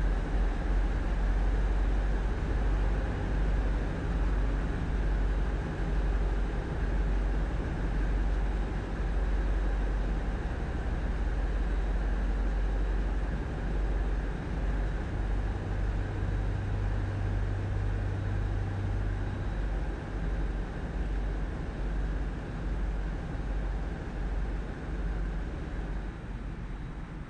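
Tugboat's diesel engines running steadily with a deep, low drone. A low hum swells in for a few seconds past the middle, and the sound eases off slightly near the end.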